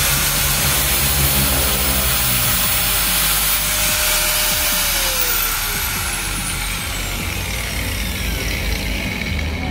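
Electric angle grinder running free at full speed with a high whine, the disc not touching the metal. About five seconds in it is switched off and the motor winds down, its pitch falling steadily.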